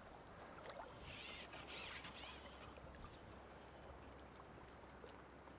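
Near silence: faint outdoor ambience, with a brief soft hissing rustle about a second in.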